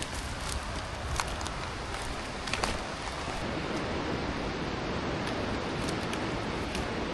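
Footsteps crunching on a dirt trail for about the first three seconds, then a steady rushing noise takes over.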